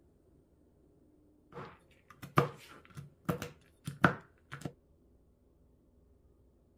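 Kitchen knife chopping pecans on a cutting board: a quick, uneven run of about eight sharp knocks starting about a second and a half in and lasting about three seconds.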